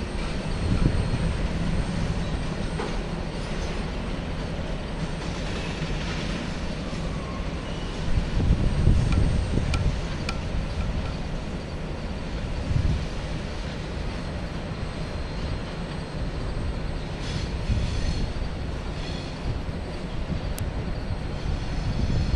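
BNSF freight train of autorack cars rolling past on an elevated track: a steady rumble of wheels and cars with occasional clicks, and a faint thin wheel squeal in the first half.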